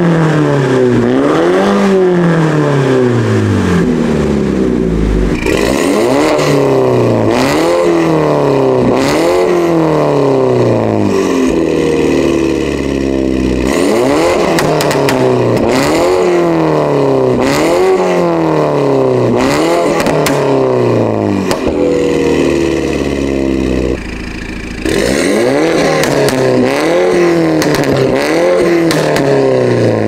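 Tuned MINI Cooper S (F56) turbocharged 2.0-litre four-cylinder with catless downpipes, revved over and over at a standstill. Its exhaust pitch rises and falls in quick blips about every two seconds. Some blips end in sharp pops on the overrun, and there is a brief lull about 24 seconds in.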